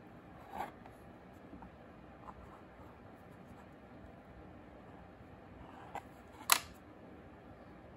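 Quiet handling of clay with a pointed clay tool: a few soft taps and light scraping, and one sharp click about six and a half seconds in.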